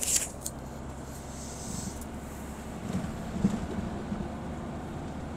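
Steady low drone of a truck's engine and road noise heard inside the cab while cruising on the highway, with a short hiss right at the start.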